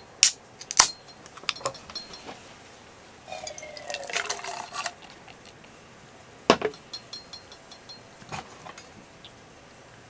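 Beer being poured into a glass: two sharp clicks near the start, a pour of about a second and a half some three seconds in, then one loud sharp knock and a few small clinks.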